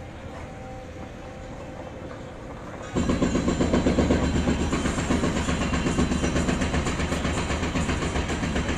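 Loud mechanical rattle with a fast, even pulse, starting suddenly about three seconds in over a low steady background.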